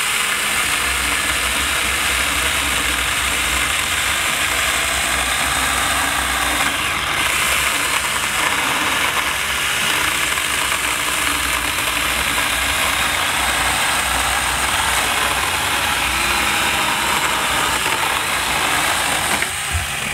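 Saker 4-inch battery-powered mini chainsaw cutting through an oak log, its electric motor and chain running steadily under load in hardwood. It stops at the end, once the cut is through.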